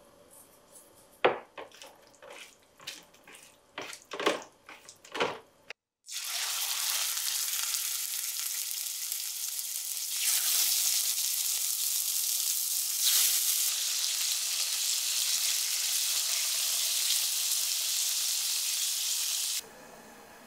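Pieces of chicken thigh searing in hot oil in a frying pan: a loud, steady sizzle that swells a little about ten seconds in, then cuts off near the end. Before the frying starts there are a few light taps and clicks as salt is taken from a canister and sprinkled on the raw chicken.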